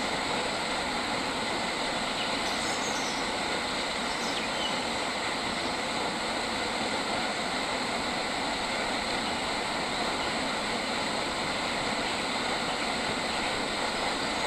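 Steady outdoor nature ambience: an even, unbroken rushing noise, with a few faint high bird chirps about two to three seconds in.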